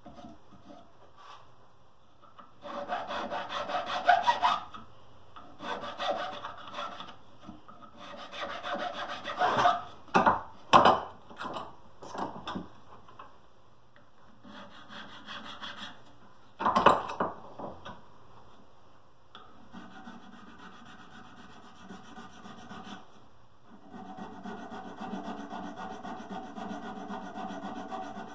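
Wood being worked by hand with a file, in runs of rapid rubbing strokes on a carved wooden piece held in a vise, with pauses between runs. A few sharp knocks a little before and after the middle are the loudest sounds.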